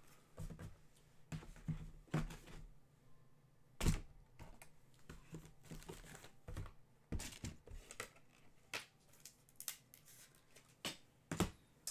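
Scattered light clicks, taps and rustles of trading-card packaging being handled and opened, with one sharper knock about four seconds in and a quicker run of clicks in the last few seconds.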